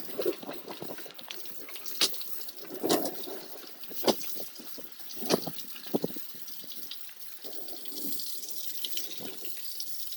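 Steady rain and dripping water, with short crunchy crackles breaking in every second or so. The uploader believes the crunchy noise comes from the phone itself whenever lightning strikes nearby.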